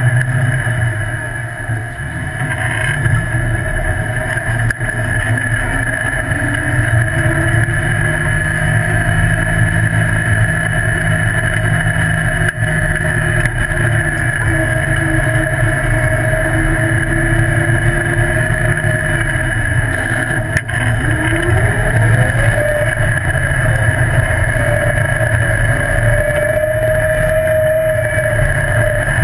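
Off-road buggy's engine running steadily under way, a continuous drone. About two-thirds of the way through, the engine note drops briefly and then climbs back up as it revs again.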